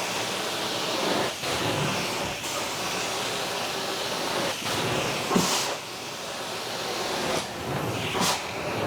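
Truckmount carpet-extraction wand running on the carpet: a steady rushing hiss of suction and spray that dips and swells every second or two as the wand is pushed and pulled.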